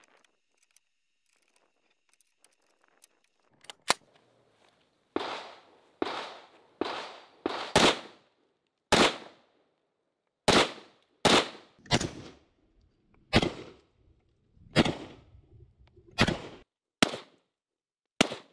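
Faint metallic clicks of the action being handled, then a 1957 Chinese SKS semi-automatic rifle in 7.62×39 firing about a dozen single shots, roughly one a second, from about four seconds in, each shot with a short echoing tail.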